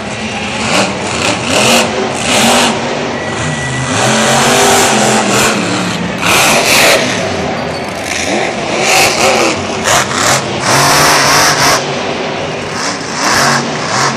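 Monster truck's supercharged V8 engine revving hard in repeated bursts, its pitch climbing and falling as the truck accelerates and jumps dirt mounds.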